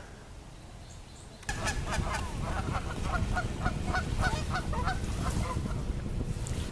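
Geese honking in a rapid series of repeated calls, starting suddenly about a second and a half in, over low wind rumble on the microphone.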